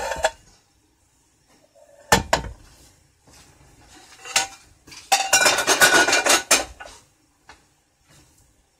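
A metal pot and pans clattering and knocking while a pot is washed out at the sink: a couple of sharp knocks about two seconds in, then a stretch of clanking with some ringing from about five to seven seconds in.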